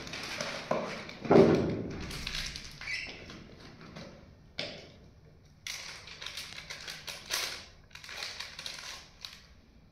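Plastic protein pouch crinkling and rustling as it is opened and emptied into a shaker bottle, with knocks and taps from the bottle being handled.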